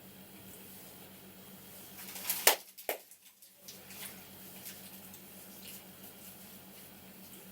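Hands working over a head and neck during a barber's head massage: faint rubbing and small clicks over a low steady hum, with one loud, sharp snap about two and a half seconds in and a smaller one just after.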